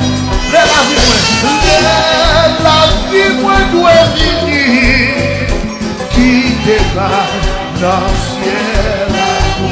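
Christian hymn: a singing voice over an upbeat band accompaniment with a steady beat.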